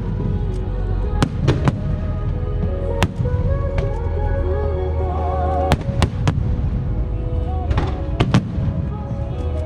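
Aerial fireworks bursting in a quick, irregular string of sharp bangs over a continuous deep rumble, with music playing along.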